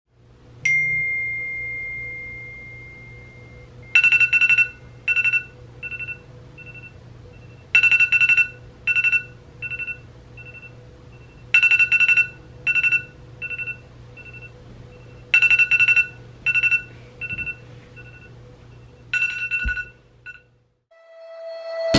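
Smartphone alarm ringing. After a single held tone at the start, it plays a repeating beep pattern, a loud cluster of beeps followed by fading repeats, about every four seconds, five times over. It cuts off suddenly near the end as it is silenced. A faint steady hum sits underneath throughout.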